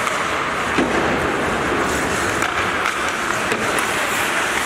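Ice hockey rink noise during play: a steady wash of skate blades on the ice and arena echo, with a few faint knocks.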